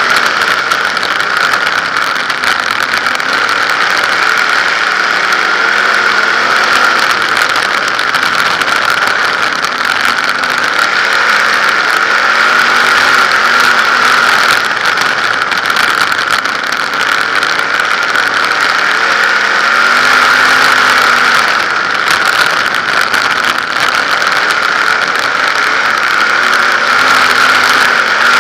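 In-car sound of a 360 winged sprint car's V8 running hard at racing speed, loud and continuous, its pitch rising and falling every several seconds as the car goes around the track.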